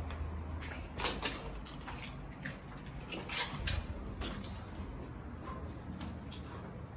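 Irregular footsteps and scuffs, with a few sharper knocks clustered about a second in and again in the middle.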